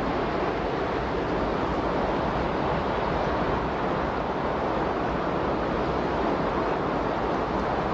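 Steady, unchanging rushing noise with no rhythm or events, the masking bed of a subliminal recording.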